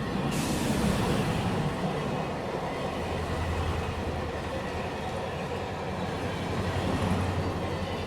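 Train running on rails: a steady low hum under a dense rumble, with a hiss that starts suddenly just after the start and swells twice.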